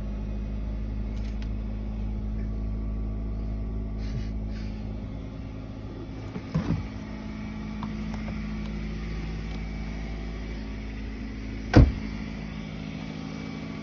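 2006 Mercury Mariner Hybrid's 2.3-litre four-cylinder engine idling steadily just after a cold start at 18°F. A couple of knocks come about six and a half seconds in, and a car door shuts with a loud slam near the end.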